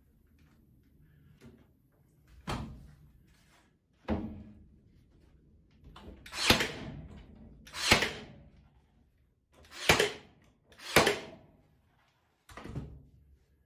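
Cordless nail gun firing nails through timber wall boards: about seven sharp shots, one to two seconds apart.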